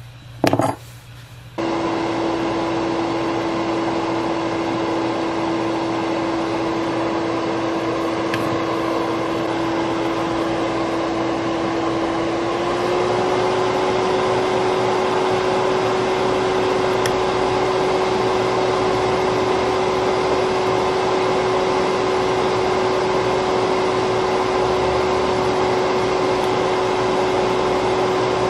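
Hot air rework station switched on and blowing steadily, a loud airflow hiss with a constant fan hum that steps slightly up in pitch about halfway through, used to heat the solder of a laptop's DC charging port for removal. A brief knock comes just before the blower starts.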